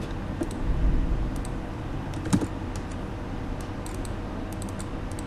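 Scattered light clicks from a computer mouse and keyboard, some close together, over a steady faint electrical hum.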